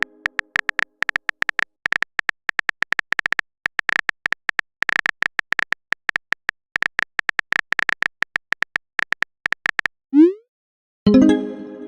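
Rapid clicks of a smartphone's on-screen keyboard typing a message, in several quick runs. About ten seconds in comes a short rising whoosh, the message-sent sound, and near the end a short ringing chime of a message alert.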